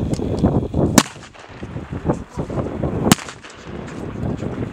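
AK-74 rifles firing single 5.45 mm shots on a firing line: two loud, sharp cracks about two seconds apart, with fainter shots from other rifles among them.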